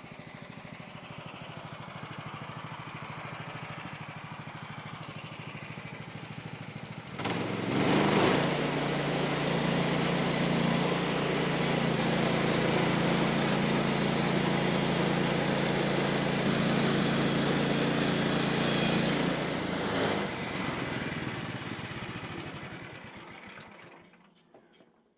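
Woodland Mills portable bandsaw sawmill running on its gas engine. About seven seconds in it is throttled up and the band blade cuts steadily through a red oak post for about twelve seconds. The engine then drops back and winds down to a stop near the end.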